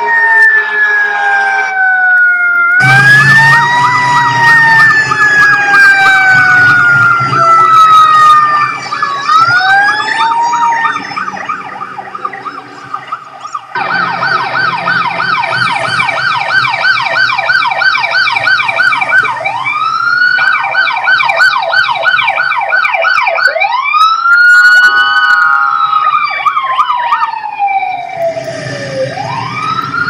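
Police car sirens, several at once. They alternate between a slow wail that rises and falls over several seconds and a rapid yelp, changing abruptly from one to the other.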